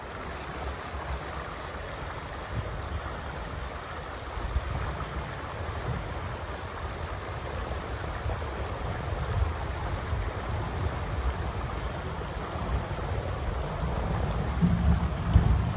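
Fast-flowing creek water rushing steadily over a rocky bed, with an uneven low rumble that swells near the end.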